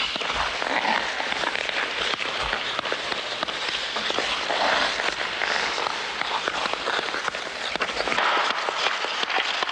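Hockey skate blades scraping and carving on the ice, with many short clicks and knocks as a puck is kicked between the skates.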